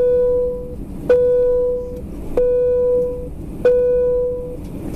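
Airbus A320 cabin chime sounding four times in a row, a steady mid-pitched tone just under a second long each time, about 1.3 s apart, over the low rumble of the taxiing aircraft's cabin.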